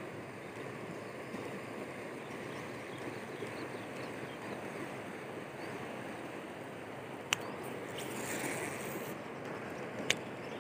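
Shallow river water rushing steadily over a rocky bed, with two sharp clicks from the fishing reel and lure being handled, the second near the end.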